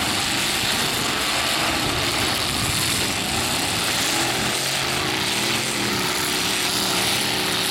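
Several demolition derby pickup trucks' engines running hard together in a steady mass of noise, with engine pitches rising and falling as drivers rev and manoeuvre, mostly in the middle and later part.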